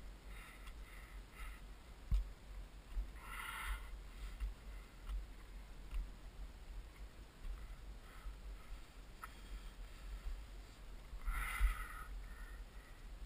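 Wind rumbling on the microphone, with two short sniffing breaths, one about a third of the way in and one near the end, and a few faint clicks.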